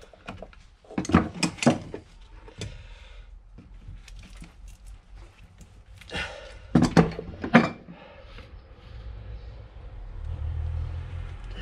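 Metal clinks and knocks of hand tools working on a car driveshaft, a circlip being taken off ahead of removing the CV boot: a short cluster of sharp knocks about a second in and another around seven seconds in. A low rumble comes up near the end.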